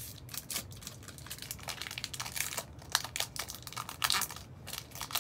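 Crinkling and rustling as a foil Pokémon trading-card booster pack and its cards are handled, in irregular crackles throughout.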